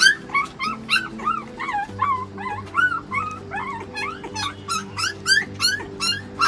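Newborn puppy whimpering and squeaking in short, high cries, about three a second, while suckling from a milk bottle. Background music with steady held notes runs underneath.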